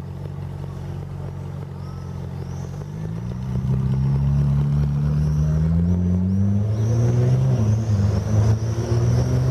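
Sports car engine idling, then from about three seconds in revving up and pulling away, its note rising, dropping once at a gear change and climbing again.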